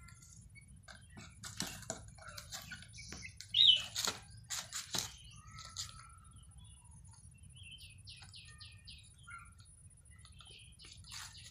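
Young chickens cheeping in short high chirps, the loudest about four seconds in and a quick run of them around eight seconds, with scattered light clicks and taps in between.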